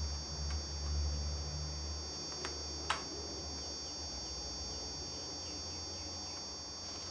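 A low electrical hum from the Commodore computer setup that swells and then fades after about two seconds, over a steady high whine. A few clicks of keys on the Commodore keyboard come about half a second, two and a half and three seconds in.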